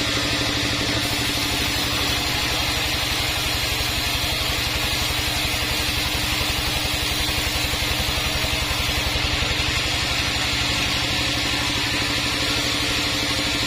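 Large sawmill band saw running steadily, an even machine drone with a fast pulsing throb underneath.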